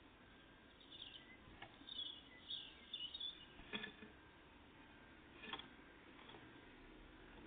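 Faint high chirps of small songbirds, clustered in the first half, with a few sharp taps and clicks among them.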